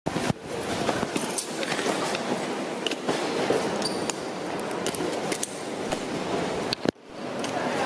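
A wheeled suitcase rolls across a hard terminal floor, making a steady rumble with scattered clicks and clinks from the wheels and the luggage. The sound cuts out briefly near the end.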